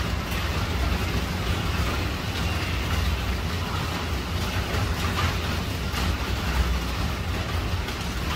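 Heavy rain pouring steadily onto a tiled roof and the trees around it: a dense, even hiss over a deep rumble, with a few faint sharp ticks.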